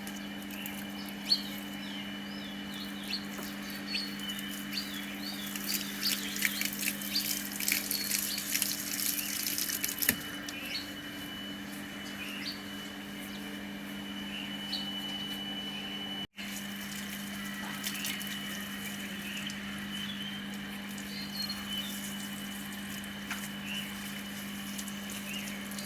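Water splashing and the wet rustle of a dog's shampooed coat being washed, busiest in the first half, with small birds chirping and a steady low hum underneath.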